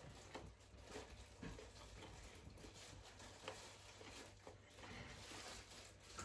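Near silence: room tone with faint scattered small clicks and rustles.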